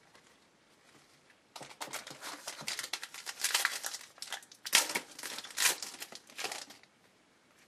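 Shiny foil wrapper of a basketball trading-card pack crinkling and tearing as it is handled and opened by hand: a dense run of crackles starting about a second and a half in and stopping near the end.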